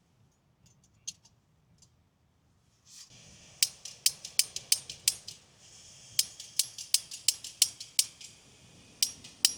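Camping gas stove hissing as its gas is turned on about three seconds in, while its push-button piezo igniter clicks repeatedly, about three sharp clicks a second with a short pause in between; the burner is not catching.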